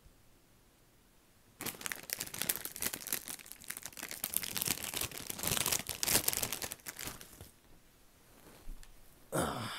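Crinkly packaging being handled, a dense run of crackling and rustling that starts about a second and a half in and stops after about six seconds.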